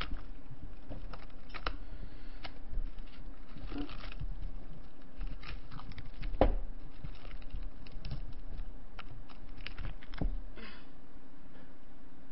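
Plastic cling wrap being peeled and crinkled off delivery food bowls by hand, with scattered light clicks and taps of the dishes and a sharper knock about six seconds in.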